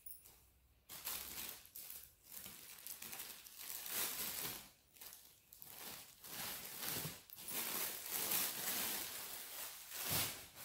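Clear plastic packaging crinkling and rustling in uneven surges as folded clothes are handled in their plastic bags, starting about a second in.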